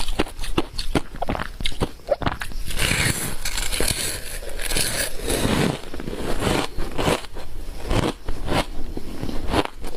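Ice coated in matcha powder being bitten and chewed close to the microphone: a run of sharp crunches, with a denser stretch of grinding chews in the middle.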